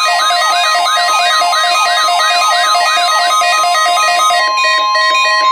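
A steady 1050 Hz NOAA Weather Radio warning alarm tone. Until a little over four seconds in, a fast electronic warble is laid over it, sweeping up and down about three times a second, together with held synthetic notes.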